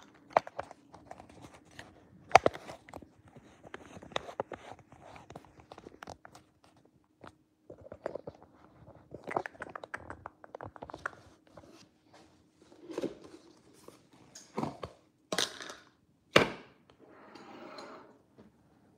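Handling noise from the plastic phone clamp holding the recording phone as it is adjusted and repositioned: irregular clicks, rubbing and knocks close to the microphone, with two sharp knocks, one a couple of seconds in and a louder one near the end, followed by a brief scraping.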